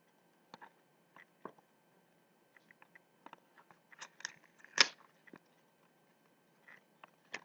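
A small cardboard cosmetics box and its paper insert being handled and opened by hand: scattered clicks and crinkles, busiest about four to five seconds in, with the loudest crackle just before five seconds.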